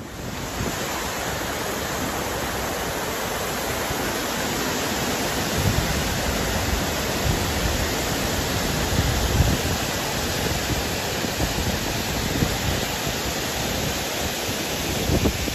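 Rushing water of a mountain creek pouring over a rocky waterfall, a steady even rush. From about a third of the way in, low irregular wind buffeting on the microphone joins it.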